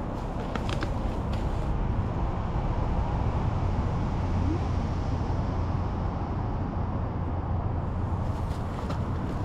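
A vehicle engine running steadily, a low hum with a light hiss above it that swells slightly about two seconds in.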